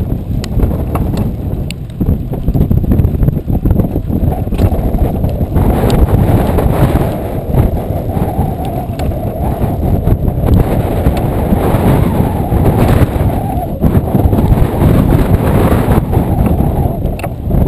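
Strong wind of about 30–40 mph buffeting a bow-mounted camera's microphone on a moving skiff, heard as a loud, constantly gusting rumble over the boat's running noise on choppy water.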